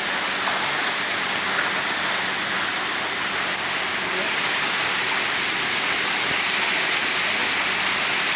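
Steady splashing and churning of water as a dense crowd of Nile tilapia thrashes at the surface inside a closed seine net, like heavy rain on water, a little louder about halfway through.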